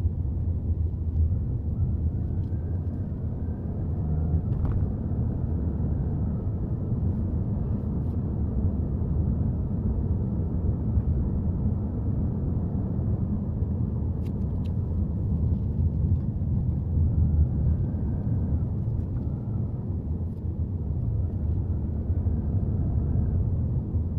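Subaru Forester on the move: a steady low rumble of road and engine noise, with a few faint clicks.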